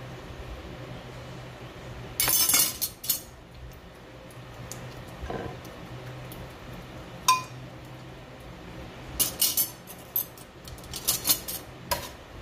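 A metal ladle and spoon clinking and scraping against a stainless steel pot and a glass baking dish as meat sauce is scooped and spread. The clinks come in scattered clusters, with one sharp ringing clink about seven seconds in, over a steady low hum.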